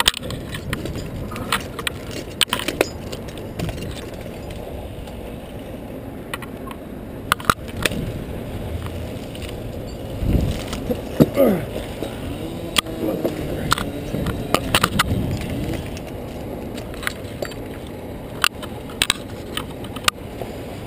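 Metal climbing hardware on a tree climber's harness clinking, with twigs snapping and scraping close to the head-mounted camera as the climber moves through the branches, many short sharp clicks over a steady low rumble.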